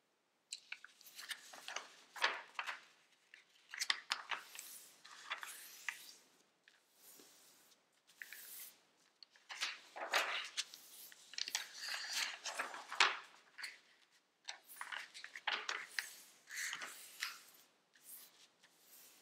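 A sheet of regular origami paper rustling and crinkling in irregular bursts as it is folded in half into a triangle and creased by hand.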